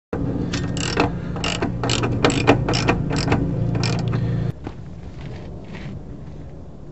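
Hand socket ratchet clicking in short runs as it turns the mounting nut on a motorhome shock absorber, about three clicks a second over a low steady hum. About four and a half seconds in, the sound drops suddenly to a quieter background with only faint clicks.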